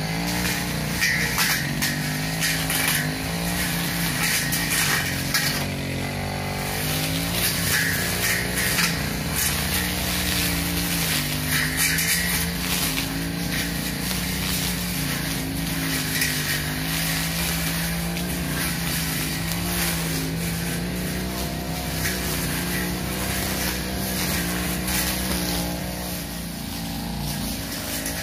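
Two-stroke '328' backpack brush cutter running at high throttle with a long 45 cm blade, its engine pitch dipping and recovering as the blade cuts through weeds and grass.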